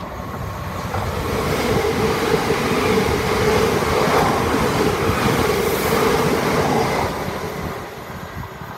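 Great Northern Class 387 electric multiple unit passing at speed on the through line. Its wheel and rail noise carries a steady hum, builds over the first couple of seconds, holds loud for several seconds as the carriages go by, and fades near the end as the train pulls away.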